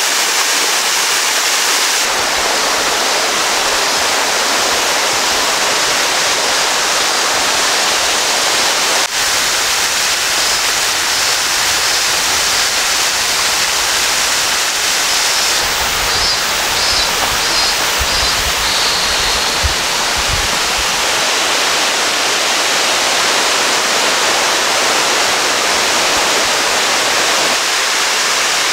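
Waterfall cascading over rocks into a pool: a loud, steady rush of falling water, recorded through a shotgun microphone. Its tone shifts slightly twice, about two and nine seconds in.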